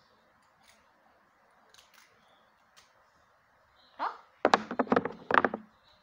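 Thin, freshly drawn 3D-pen plastic being picked off and flexed in the hands: a few faint ticks, then near the end a short rasp and a quick run of sharp crackles.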